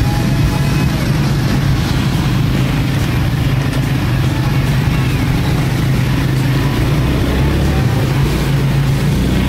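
ATV (quad bike) engine running steadily while the machine is ridden.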